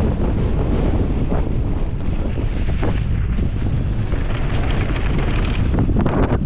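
Wind buffeting the microphone: a loud, steady low rumble of noise.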